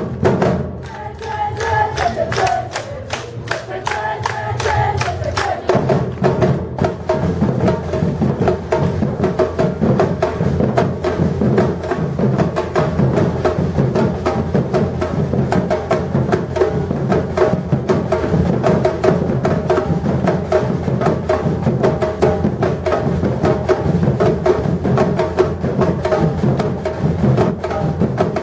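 Batucada samba-reggae drum ensemble playing a driving rhythm of struck drums and wood-block-like beats. About six seconds in, the low bass drums come in and the full band plays on steadily.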